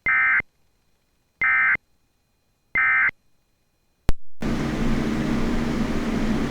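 EAS end-of-message signal: three short, identical bursts of SAME digital data tones, buzzy warbles about a second apart, closing the alert. A sharp click follows about four seconds in, then steady static hiss with a low hum.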